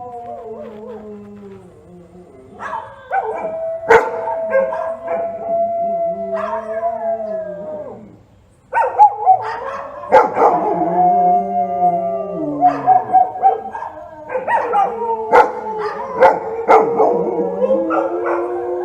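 Dog howling in long, drawn-out calls that hold their pitch and then fall away at the end, overlapping one another, with short sharp barks mixed in. There is a brief pause about eight seconds in.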